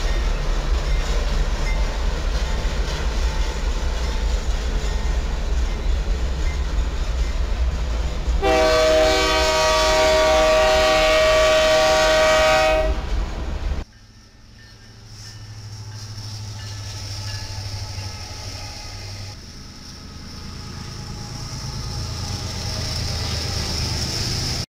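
A freight train rolls past with a loud, low rumble. About eight seconds in, a locomotive air horn sounds one steady chord of several notes for about four seconds. After a sudden drop, diesel locomotives pass with a quieter rumble that grows louder toward the end.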